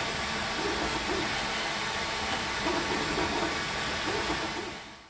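Creality Ender 3D printer running mid-print: a steady whir of cooling fans with the stepper motors' short, shifting whining tones as the print head moves. It fades out near the end.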